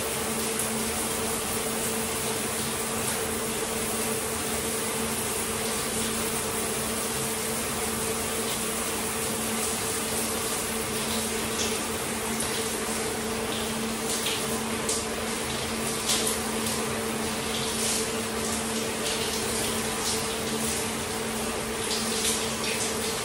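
Shower spray running steadily, water hissing onto hair and the shower floor, with a steady low hum underneath. From about halfway on there are more splashes and drips as the shampoo is rinsed out under the spray.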